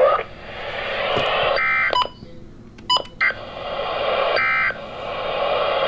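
NOAA Weather Radio sending Emergency Alert System digital data: two short bursts of shrill warbling tones about three seconds apart, over the receiver's steady static hiss, with a few sharp clicks between them. Bursts this short are typical of the end-of-message code that closes an alert.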